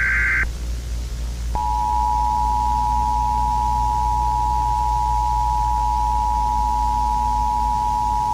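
The end of an EAS SAME digital header burst, a short warbling data squawk, stops about half a second in. About a second later the Emergency Alert System two-tone attention signal begins and holds steady: two pure tones sounding together. A low steady hum runs underneath.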